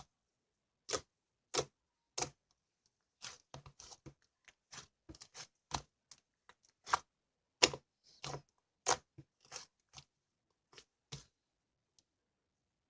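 White fluffy slime being pressed and worked by hand, giving off irregular crisp clicks and pops, about two dozen, some much louder than others, that stop near the end.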